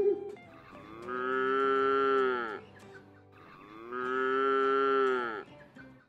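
Cow mooing twice, two long moos of about two seconds each, with the pitch dropping at the end of each.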